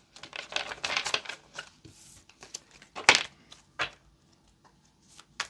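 A tarot deck being shuffled and handled: a quick run of card flicks and slaps in the first second or so, then a few separate sharp taps and snaps with pauses between.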